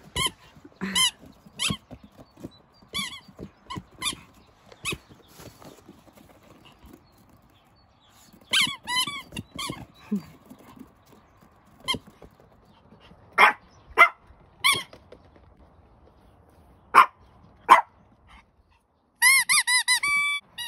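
Squeaky dog toy squeaked again and again in short, high squeaks with pauses between, ending in a fast run of squeaks.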